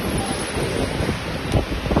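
Steady rushing noise on the microphone with irregular low thumps, like wind or handling noise.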